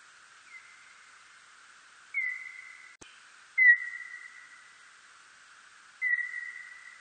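Serotine bat calls: four short, whistle-like chirps, each opening with a quick downward slide and trailing off as a fading tone. The third chirp is the loudest. There is a steady hiss underneath and a single sharp click about three seconds in.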